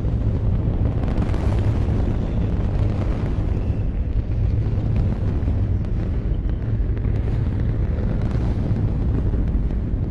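Saturn V S-IC first stage's five F-1 rocket engines firing in a static test: a steady, dense rumble, strongest in the deep bass.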